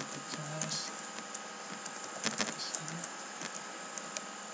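Computer keyboard keystrokes, a few scattered clicks with a quick cluster about two seconds in, as numbers are typed into a table, over a steady electrical hiss and hum. A low voice murmurs briefly twice.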